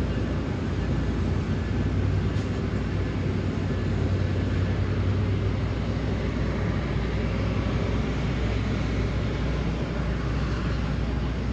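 A train running, with a steady low rumble.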